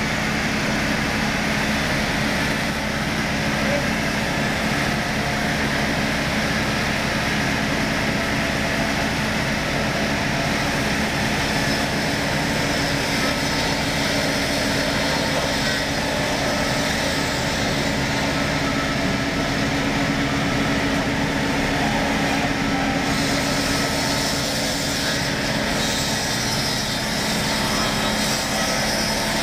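Circular-saw woodworking machine running and ripping timber fed along its carriage: a loud, steady machine drone with a constant low hum.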